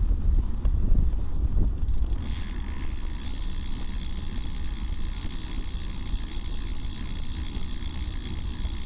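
Wind rumbling on the microphone of a moving bike camera. About two seconds in, the rumble eases and a steady hiss with high whining tones takes over.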